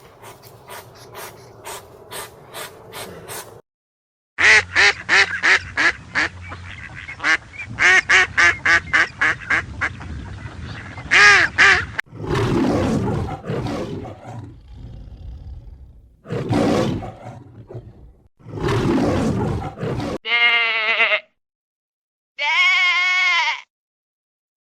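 A run of different animals' calls one after another: rapid, evenly repeated pitched calls, then rougher, lower calls, then short wavering bleats near the end.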